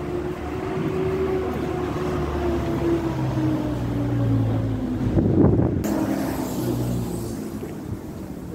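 Motor vehicle engine running close by, with a steady pitched hum that slowly sags. It gets louder to a peak a little past halfway, then fades.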